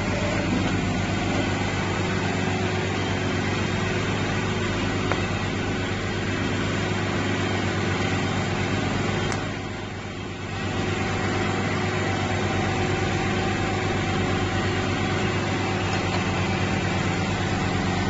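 Automatic cap assembly machine running steadily, with a constant motor hum and mechanism noise; the sound dips briefly about halfway through.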